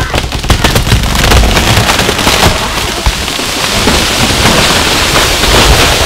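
Large buttressed tree coming down: a run of sharp cracks as the trunk snaps and splinters, merging into a long, loud crashing rush of breaking branches and foliage.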